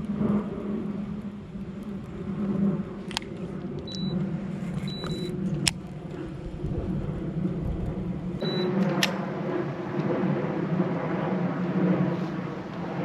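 A small motor running steadily, with a few sharp clicks.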